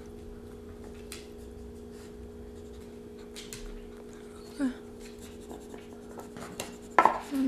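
Metal kitchen tongs faintly scraping and clicking as ground taco meat is lifted and laid into a taco, with a sharper clack about seven seconds in, over a steady low hum.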